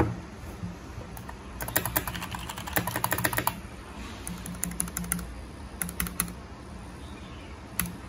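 Typing on the keys of a Keychron K3 V2 low-profile mechanical keyboard: a single knock right at the start, a quick run of clicking keystrokes from a couple of seconds in, then a few scattered keypresses.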